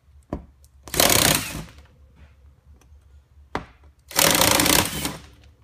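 Power drill run in two short bursts of about a second each, boring holes through the plastic tub, each burst preceded by a sharp click.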